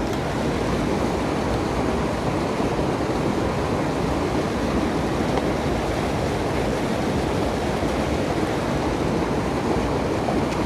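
Waterfall rushing, a steady even roar of falling water with nothing else standing out.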